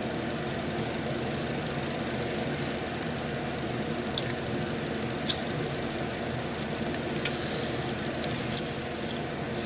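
Small, sharp clicks and taps of hand tools being handled while soldering on a circuit board, scattered irregularly, over a steady low hum.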